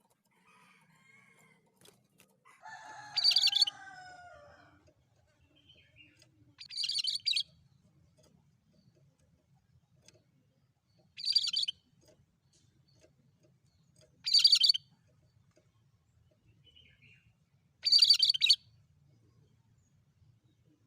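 Cucak kerinci songbird calling in short, loud, high-pitched bursts, five in all, spaced about three to four seconds apart. A lower, falling warble comes with the first burst.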